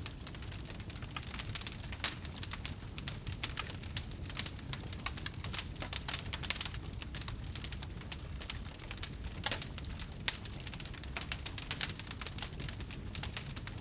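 Wood fire crackling: many irregular sharp pops and snaps, a few louder ones, over a steady low rumble.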